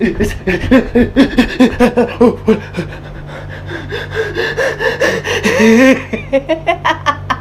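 A person laughing hard in quick repeated bursts, about four a second, with gasping breaths between them.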